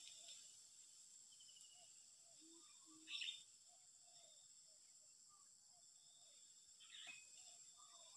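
Faint cooing of a spotted dove in short low notes, over a steady high insect-like hum.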